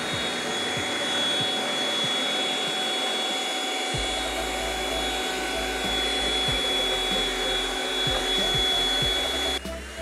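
Philips SpeedPro Aqua FC6728 cordless stick vacuum running steadily, a high motor whine over rushing air, as its dusting-brush attachment sweeps along the wall. The sound briefly drops out near the end and comes back with a short rising whine.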